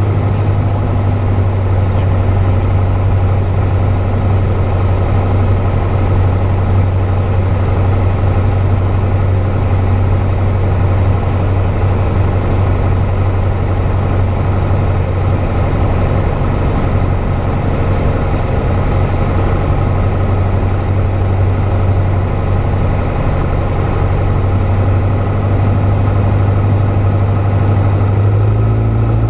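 Piper PA-28's piston engine and propeller droning steadily, heard from inside the cockpit on a landing approach; the pitch steps up slightly near the end.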